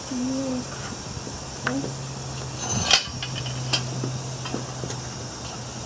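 A few sharp metallic knocks and clinks, the loudest about three seconds in, over a steady low hum and hiss.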